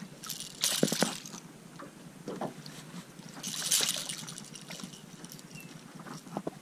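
A hooked smallmouth bass thrashing and splashing at the water's surface as it is reeled in, in two short bursts: about a second in and again around the middle.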